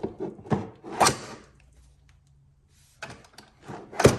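Handling knocks and clicks from hard plastic parts being picked up and set down, with a quiet spell in the middle and one sharp, loud knock near the end.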